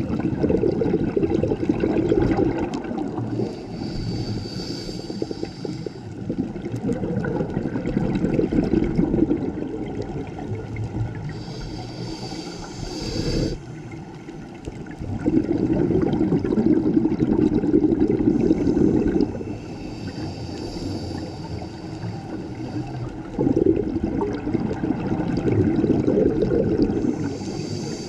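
A scuba diver breathing through a regulator underwater. Each breath gives a short hiss on the inhale, then a longer burbling rush of exhaled bubbles, repeating about every eight seconds.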